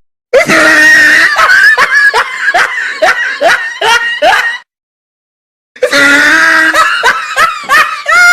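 Two laughing sound effects one after the other: loud, rapid ha-ha laughter in quick repeated pulses that stops about four and a half seconds in, then after about a second of silence a second laugh, again in quick pulses with rising-and-falling pitch.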